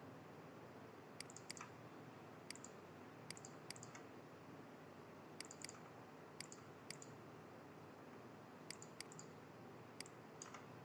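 Computer mouse clicking, a dozen or so sharp clicks at irregular moments, many in quick pairs or triplets, over a faint steady hiss.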